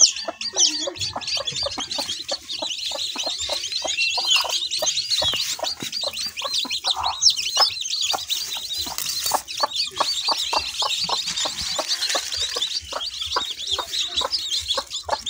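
A brood of young chicks peeping constantly in many high overlapping chirps, with a mother hen clucking among them.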